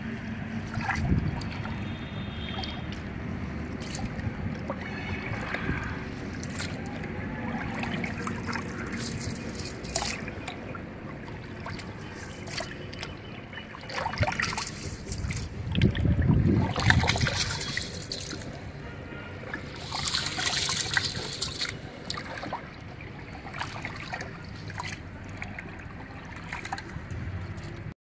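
Hands stirring and rubbing long-grain rice in a large vessel of water, with irregular sloshing and trickling that swells louder a few times as handfuls are lifted and dropped back.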